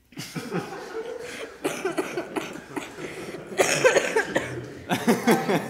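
A group of young people laughing together in uneven, overlapping bursts. It breaks out suddenly and is loudest about midway and again near the end.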